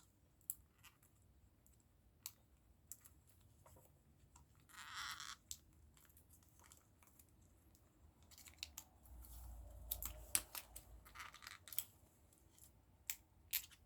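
Plastic packaging of a gashapon capsule toy being worked open by hand: faint scattered clicks and crinkles, a short rustle about five seconds in, and more rustling and clicks from about eight seconds on.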